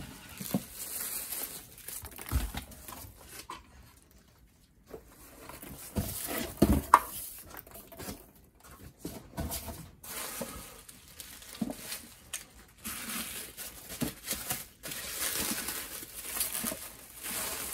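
Plastic bubble wrap and cardboard packaging crinkling and rustling as a bubble-wrapped package is handled, with a few knocks. The loudest knock comes about seven seconds in.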